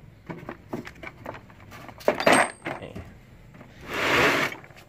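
Steel sockets and wrenches clinking and rattling in a metal tool box as it is handled: a run of light clicks, then a sharper metal clank about two seconds in with a brief ring, and a short scraping noise near the end.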